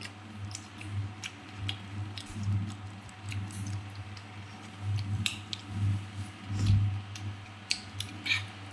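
Crisp bites and chewing of raw green mango slices, a scatter of short sharp crunches over a steady low hum, with a dull bump about two-thirds of the way through.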